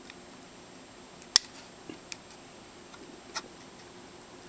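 Utility knife tip picking at the small adhesive-backed screw cover on a laptop's plastic screen bezel: about four sharp ticks of the blade against the plastic, the loudest about a second and a half in.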